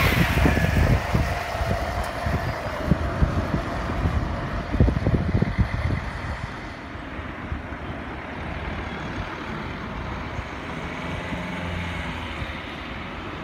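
Articulated city bus passing close alongside and pulling away ahead, its engine rumble and a whine that drops slightly in pitch fading over the first six seconds. Wind buffets the microphone.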